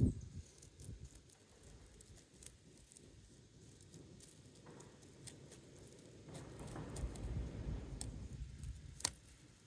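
Hands working an asphalt roof shingle: scattered light clicks and scraping, a stretch of low rustling past the middle, and one sharp click near the end.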